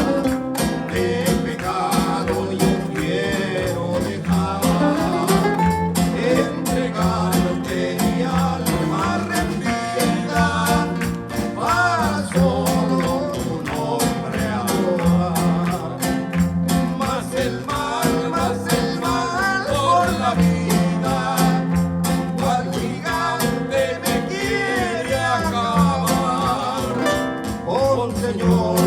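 A Spanish-language Christian praise song (alabanza) sung by a voice over guitar accompaniment with a steady rhythm and a bass line.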